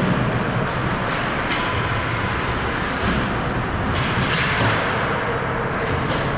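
Ice hockey play on an indoor rink: a steady hiss of skates on the ice, with a few short sharp scrapes of blades and sticks.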